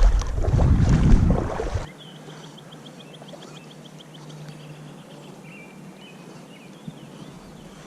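A burst of rough rushing noise that cuts off abruptly about two seconds in. Then a quiet, still riverbank where a bird sings faintly: a quick trill of high notes, and a few lower notes after it.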